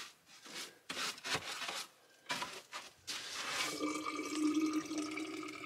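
Water running from the spigot of a plastic water container into a bottle, a steady pour with a faint ringing tone, starting about three seconds in. A few brief handling knocks and rustles come before it.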